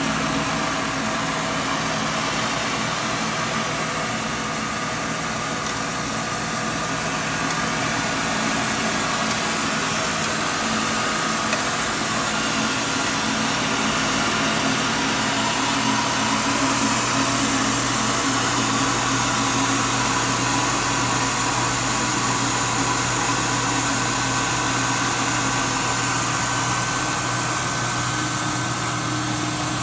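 Rice milling machine running steadily: an even motor hum with a constant hiss from the milling.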